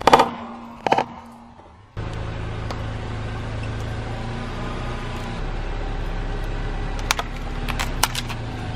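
Two short, loud squeaky sounds in the first second as a car tyre presses down on squishy mesh stress balls. Then a car engine runs with a steady low hum while the tyre rolls on. Near the end come several sharp cracks as a plastic eyeshadow palette breaks under the tyre.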